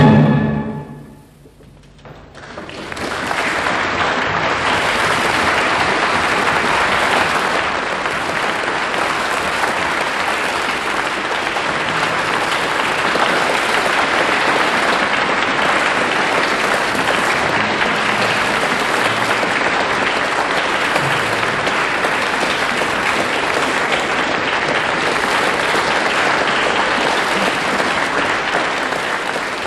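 The orchestra's last chord dies away at the very start. After a moment of near quiet, an audience breaks into steady applause that greets the end of the cello concerto, easing off near the end.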